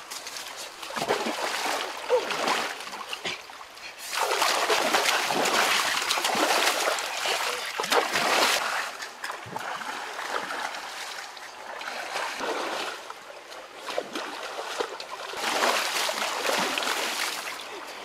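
Water splashing as a person thrashes about and ducks under in a shallow river, in loud spells with quieter moments between.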